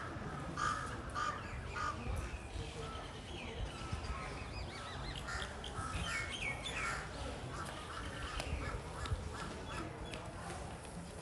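Birds calling outdoors: a run of short repeated calls in the first couple of seconds, and some higher rising chirps around the middle, over a faint background of people's voices.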